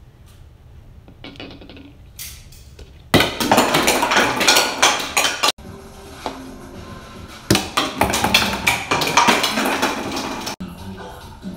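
Hollow plastic toy bowling pins and ball knocking over and clattering on a wooden tabletop, in two dense bursts of rattling knocks that each break off abruptly.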